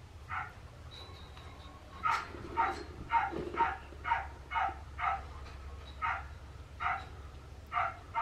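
A dog barking over and over, about a dozen short barks, coming faster in the middle.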